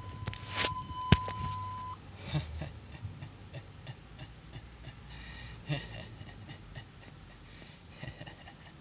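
A steady high beep that stops about two seconds in, with a sharp click about a second in, followed by faint scattered breathy, hissing sounds.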